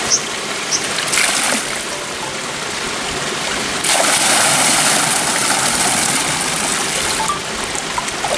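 Water poured from a wooden bucket over a person's head, splashing down into a river for about three and a half seconds from about four seconds in, over the steady rush of the stream. A short splash comes about a second in.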